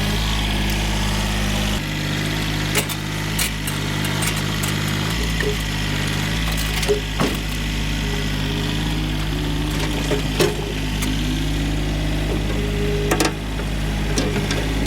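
Tractor engine idling steadily, with a few sharp metallic clanks and knocks scattered over it.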